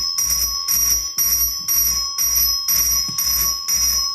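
Simplex 4251-21 fire alarm horn sounding in march time, about two buzzing blasts a second.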